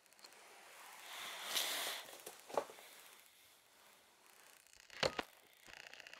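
A short rustling swell about a second in, then a single sharp click, and a quick pair of knocks near the end.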